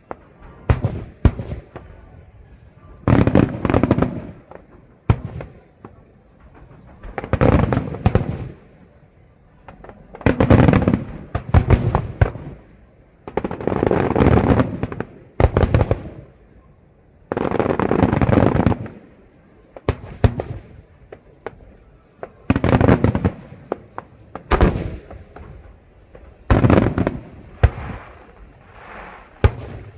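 Aerial fireworks bursting in a display: clusters of sharp bangs, each lasting one to two seconds, every two to three seconds.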